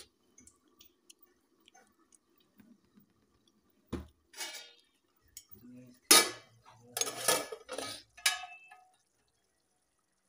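A metal pan lid clanking against the pan and stove as it is lifted off: one knock about four seconds in, then a run of loud clatters with a short metallic ring between about six and eight and a half seconds.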